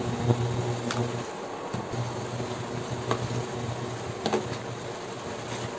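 Wooden spatula stirring chicken pieces in a metal pot, with a few light knocks against the pot, over a steady low hum from the cooktop that drops out briefly about a second and a half in.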